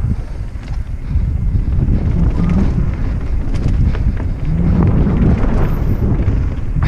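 Wind buffeting the microphone of a mountain bike descending a trail, a steady low rumble. Scattered short knocks and rattles from the bike run over rough ground.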